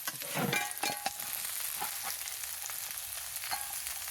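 Steaks and vegetables sizzling in a frying pan, a steady hiss with a few sharp clicks.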